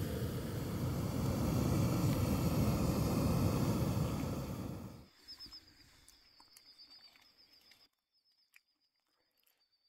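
A steady, loud rushing noise, heaviest in the low range, that cuts off suddenly about five seconds in. After it comes a faint, high, rapidly repeated chirping with a few soft ticks, then near silence.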